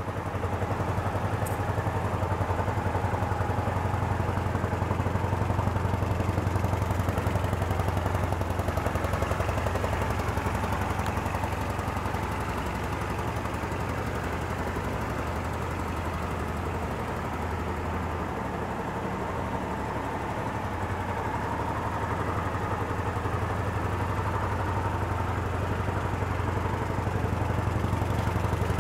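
Kawasaki Vulcan 800's liquid-cooled V-twin engine idling steadily, its level easing a little midway and coming back up.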